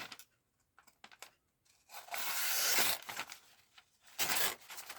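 The serrated edge of a Masterforce folding knife cuts through paper in two tearing strokes: a longer one about two seconds in and a shorter one near the end, after a few light clicks and rustles.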